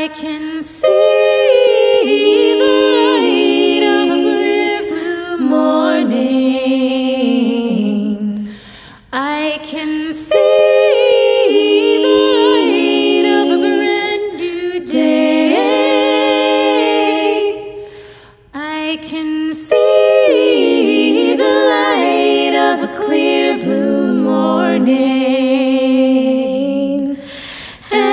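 Three women singing a cappella in close three-part harmony, in three long sustained phrases with short breath breaks between them.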